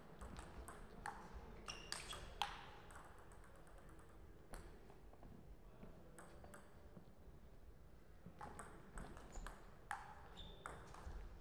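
Table tennis ball clicking sharply off bats and table in two rallies, the first in the opening few seconds and the second starting past the middle, with a mostly quiet gap between them.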